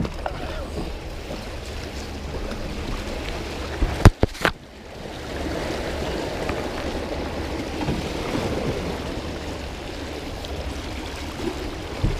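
Fast creek water rushing steadily past a canoe running a riffle. A few sharp knocks about four seconds in, as the canoe bumps against a fallen log.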